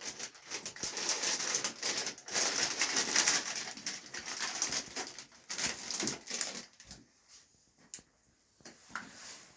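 Thin plastic bag crinkling and rustling as it is handled, a dense crackle that stops about seven seconds in.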